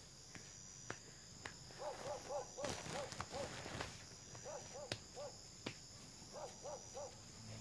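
Faint night ambience: a steady high insect trill under a short hooting animal call, repeated about three times a second in runs of three to six. A few soft knocks are also heard.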